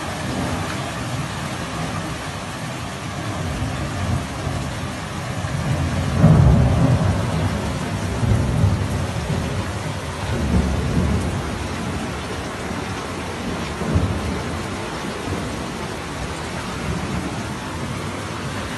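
Heavy rain and floodwater rushing down a street, a continuous hiss. Deep rumbles swell under it several times, loudest about six seconds in, with a short sharp rise near fourteen seconds.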